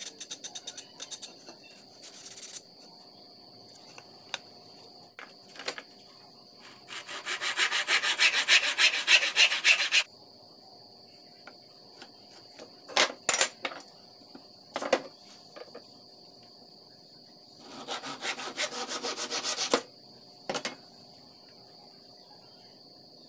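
Hand sanding of a small piece of wood with sandpaper: two spells of quick back-and-forth rubbing strokes, about three and two seconds long, with a few light wooden knocks between them. A steady high insect trill runs underneath.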